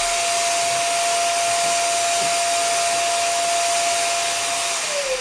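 Vacuum cleaner running steadily with a high motor whine over its rushing airflow, then switched off near the end, the whine falling in pitch as the motor spins down.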